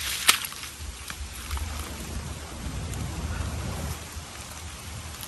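Digging in wet, muddy ground with a hand tool, with scattered crackling and one sharp knock a moment after the start. A low rumble runs through the middle.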